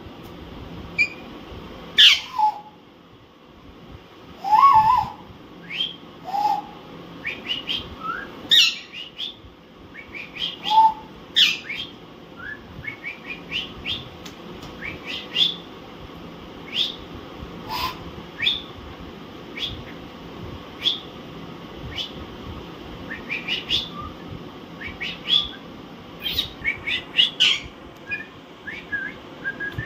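Alexandrine parakeets squabbling with short, sharp squawks and chirps at irregular intervals, the loudest calls in the first dozen seconds and a quick run of repeated chirps near the end.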